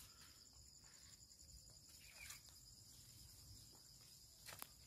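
Faint, steady high-pitched trilling of crickets, with a light click about halfway through and another near the end.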